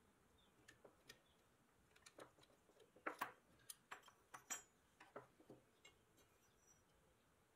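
A thin metal tool prying at the tabs that hold the rusted tail fin onto a 1930s Wyandotte pressed-steel toy plane: a scatter of small metallic clicks and scrapes, loudest about three seconds in and again a little later, as the fin works loose.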